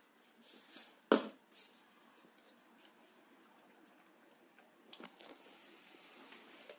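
A bowl set down on a wooden floor with one sharp knock about a second in, then a golden retriever eating spaghetti from it, with faint wet chewing and lapping.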